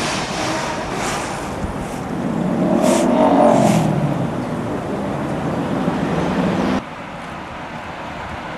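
Bus engines running at a bus station, swelling about three seconds in with a few short hisses. Near the end the sound drops suddenly to quieter road traffic with a bus approaching.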